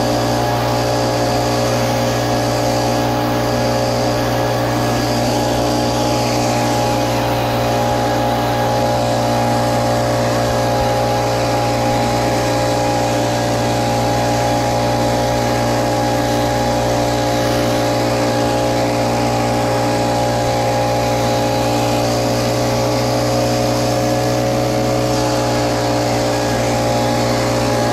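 Little Wonder Optimax walk-behind blower running steadily, its small gas engine and fan holding an even drone while it blows pine needles along the ground.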